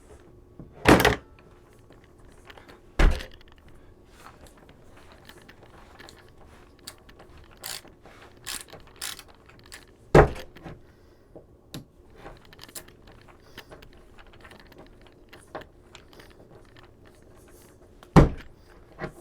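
A No. 2 Phillips screwdriver being punched and twisted into drywall to make holes for drywall anchors: four sharp thuds spread through the stretch, with faint crunching and clicking between them.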